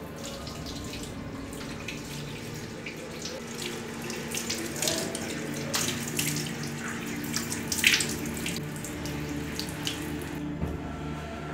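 Water running from a tap into a wash basin, with hands splashing water onto the face in a string of short splashes, the loudest about eight seconds in.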